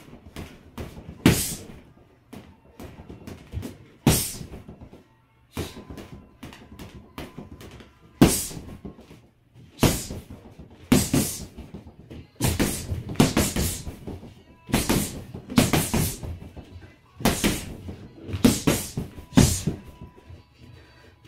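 Boxing-gloved punches landing on a freestanding punching bag in quick combinations, with short pauses between the flurries.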